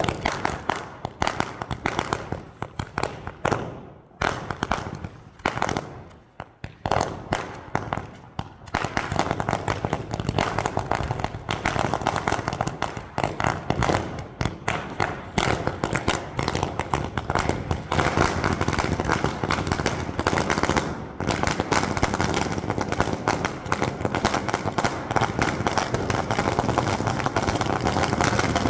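A 10,000-cracker firecracker string bursting in rapid succession, at first in uneven clusters of cracks, then from about a third of the way in as a dense, unbroken rattle, with one brief break about two-thirds through.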